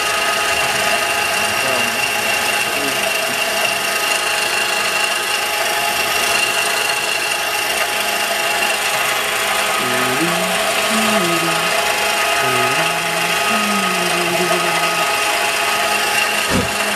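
CNC-converted milling machine running loudly, its spindle and cutter engraving a circuit-trace pattern into a wooden board: a dense grinding noise with a steady high whine. Low tones that step and glide in pitch come and go in the second half.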